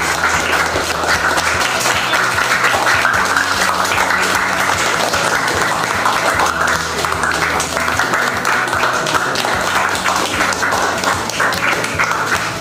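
A small group of people clapping steadily, with background music playing underneath.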